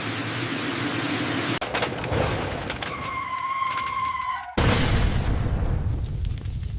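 Crash sound effect for a collision: a held high tone for about a second and a half, then a sudden loud boom that runs on as a low rumble.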